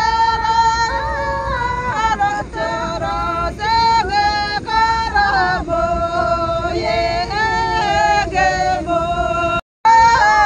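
A song with a woman's voice singing held, gliding notes over a low steady rumble; the sound cuts out briefly near the end.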